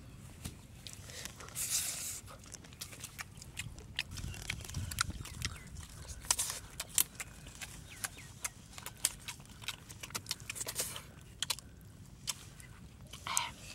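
A person eating rice by hand with their mouth close to the microphone: irregular wet smacks and clicks of lips and sucked fingers, with a few brief sucking sounds.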